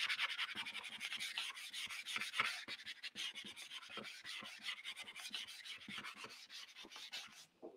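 The edge of a card rubbed hard back and forth across the back of an oil-soaked copier-paper print, burnishing it to transfer the image onto the paper underneath. It makes a quick run of dry scraping strokes that grow fainter toward the end.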